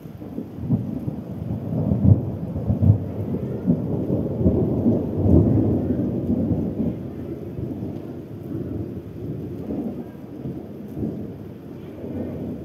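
A long, rolling thunder rumble that swells in the first two seconds, is loudest from about two to six seconds in, then slowly fades, over steady rain.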